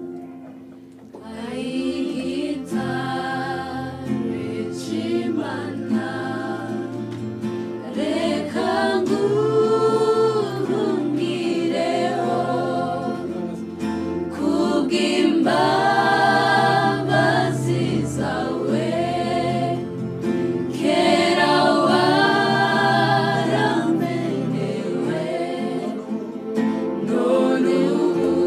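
A small group of women singing a Kinyarwanda gospel worship song together.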